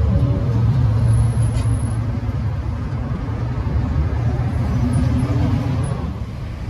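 Street traffic: a motor vehicle's engine rumbling close by, slowly fading over the last few seconds.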